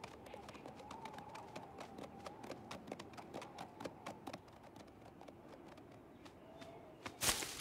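Soft, quick hoof taps of cartoon ponies tiptoeing, several a second, over a faint held tone; a short hiss breaks in near the end.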